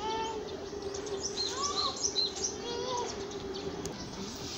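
Small birds chirping and calling, with a cluster of quick high chirps in the middle, over a steady low hum and outdoor background noise.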